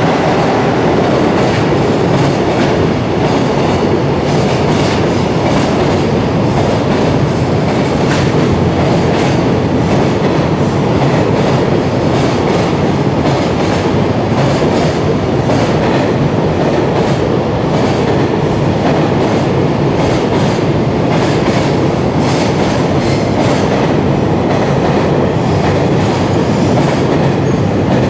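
Long electric-hauled container freight train passing at speed: a loud, steady rumble of wheels and wagons, with a quick run of clicks and clatter as the wheels cross the rail joints.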